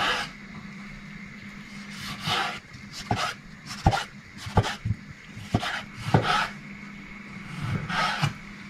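Chef's knife slicing through tomatoes and knocking on a wooden chopping board: about eight short, sharp knocks at uneven intervals.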